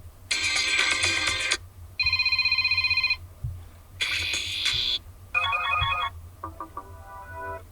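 Built-in ringtones on a Blackview BL6000 Pro 5G smartphone played one after another through its loudspeaker. Five short previews of different electronic melodies and ring tones, one of them a fast pulsing ring, each cut off after about a second.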